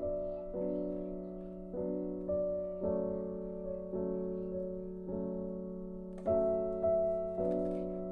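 Soft background piano music, slow single notes and chords struck about every half second and left to ring.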